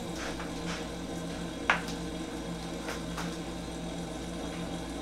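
Steady hum of a wall-mounted air conditioner, with one sharp knock a little under two seconds in and a few fainter taps around it.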